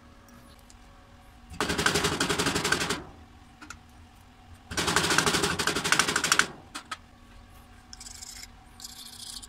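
Metal rasping on metal in two rapid bursts of about a second and a half each: a steel bar scraped hard along a stick-welding electrode, stripping off its flux coating. Fainter, lighter scrapes follow near the end.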